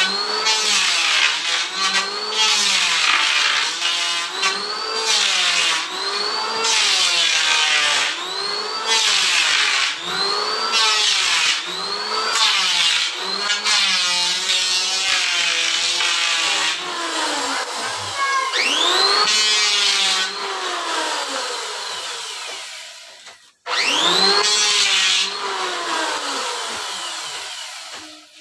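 Electric wood planer cutting wood in repeated passes, its motor pitch rising and falling with each stroke about every one and a half to two seconds. Near the end it winds down, cuts off, then starts again at full speed.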